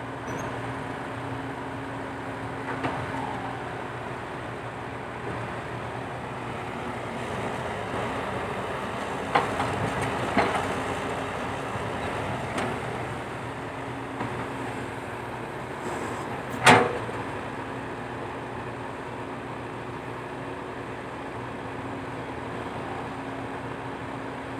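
Diesel engine of a Komatsu PC120-5 hydraulic excavator running steadily, with a few sharp knocks partway through; the loudest comes about two-thirds of the way in.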